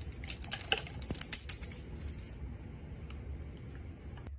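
Rapid light clinks and clicks of small hard objects knocking together, with a brief high ringing, for about the first two seconds. The clinking then stops, leaving a low hum.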